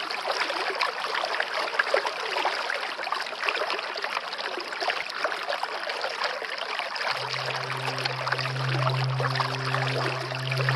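Rushing, splashing water of a swollen flooded river around a wading man. About seven seconds in, a steady low droning tone comes in over the water and holds.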